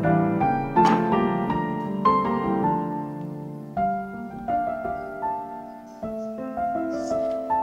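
Background piano music, a gentle melody of single notes and chords.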